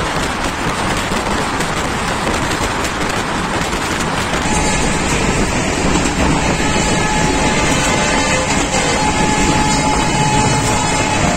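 Indian Railways express train running along the track: a steady rumble and rattle of wheels on rails. About four seconds in, the noise changes and faint steady high tones join it.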